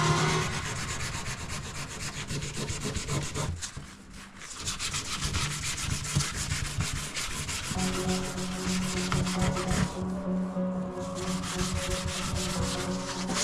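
Sanding on a car's quarter panel around a small parking dent, preparing the spot for filler: a rapid, scratchy rubbing that dips briefly about four seconds in. A steady low hum runs under it in the second half.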